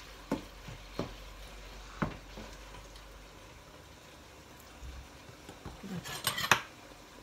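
Spatula knocking and scraping against a frying pan as minced pork is stir-fried: a few separate clicks in the first two seconds, then a quick run of clatter near the end.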